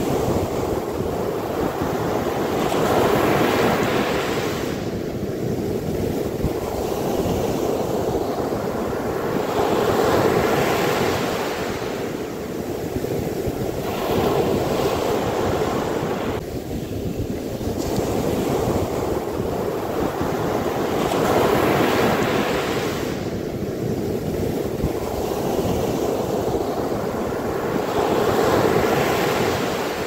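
Sea surf breaking and washing up a sandy beach, a steady rush of water that swells and fades in surges every five to seven seconds.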